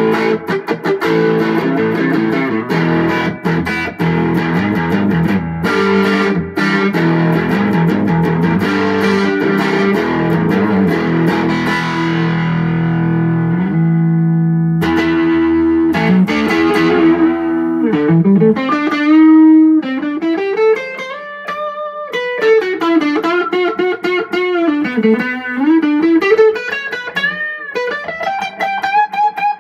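Electric guitar played through a 15/5-watt Champ-style combo amp with two 12-inch vintage Weber speakers. Chords are strummed for the first half, then a chord is left to ring and fade. From about 18 seconds in, a single-note lead follows with bent notes and wide vibrato.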